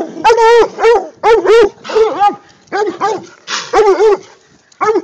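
Coonhound barking repeatedly at a caged raccoon, short loud barks at about two or three a second with a brief lull near the end.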